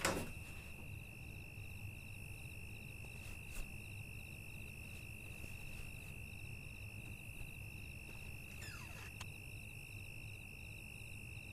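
Night ambience of crickets: a steady high trill with rows of short rhythmic chirps above it, over a faint low rumble. A brief falling swish sweeps down about nine seconds in.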